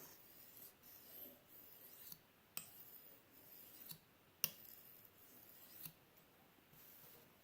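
Pocket-knife blade stroked lightly across a sharpening stone, a faint rasping, with a few sharp clicks; the loudest click comes about four and a half seconds in. These are light touch-up strokes on one spot of the edge.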